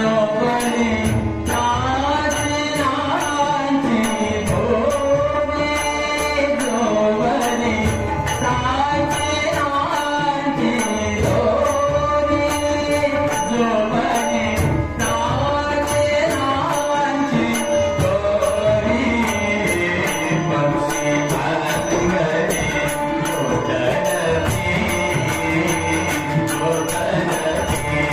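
Marathi devotional bhajan: voices singing a slow, winding melody, with small hand cymbals ticking out a steady beat throughout.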